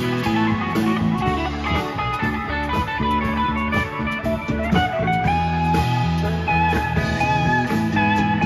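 Rock band playing live with no singing: electric guitars, bass, keyboard and drums, with long lead notes bending in pitch from about five seconds in.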